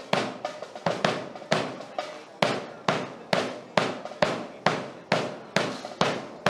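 Steady drum beat: sharp, snare-like hits about two a second in an even marching tempo.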